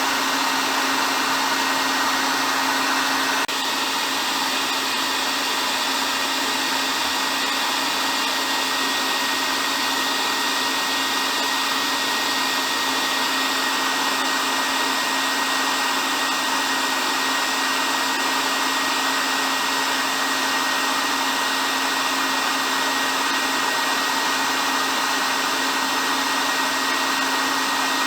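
Hair dryer blowing steadily, an even whooshing hiss with a steady whine of the fan motor, a slight drop in level about three and a half seconds in.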